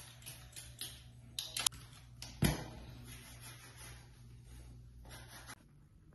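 A few light clicks and knocks of toiletries being handled, the loudest a dull knock about two and a half seconds in. A low steady hum runs underneath and stops shortly before the end.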